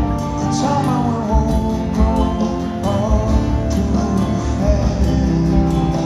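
Live band music played loud from the audience's position: strummed acoustic guitar over electric bass, with a horn section of trumpet and saxophone carrying a melodic line.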